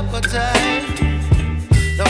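Background music with drum hits, a steady bass line and a wavering melody on top.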